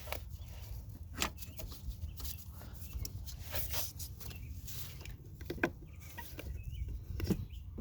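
Irregular clicks and light metallic knocks, a few sharper than the rest, with short squeaks, as the original shifter parts of a VW Mk4 Jetta are worked loose and slid off.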